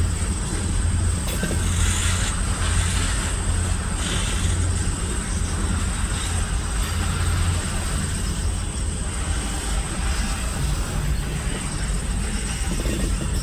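Diesel locomotive running steadily: a low engine drone with a steady high-pitched whine over it.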